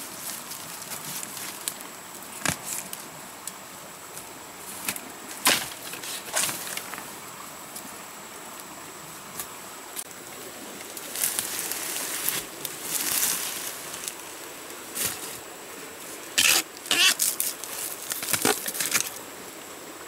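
Machete chopping at a bamboo shoot in a bamboo thicket: single sharp strikes a few seconds apart, then a quick run of strikes near the end, with dry bamboo leaves rustling in between.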